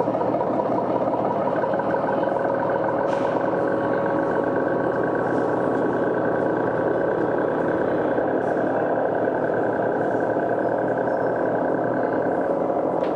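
Experimental noise-drone music: a dense, steady droning wall of sound with several held tones. A higher held tone comes in early and fades out near the end, and there are two brief crackles, one about three seconds in and one at the very end.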